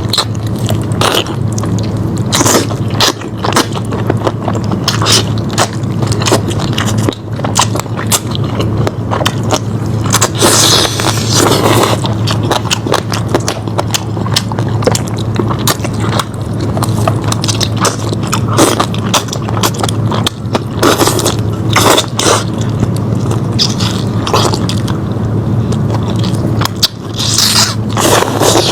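Close eating sounds of lamb chops being bitten and chewed, with scraping and many short wet clicks as meat is worked off the bone, over a steady low hum.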